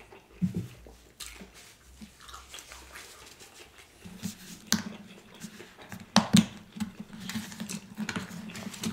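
Close-up chewing and mouth sounds of a man eating tacos. About halfway through come a few sharp clicks and taps as he handles the food and a plastic sauce container, and a low steady hum sets in.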